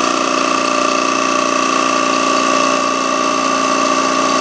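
Electric vacuum pump running with a steady hum made of several even tones, together with a wood lathe spinning a bowl held on a vacuum chuck.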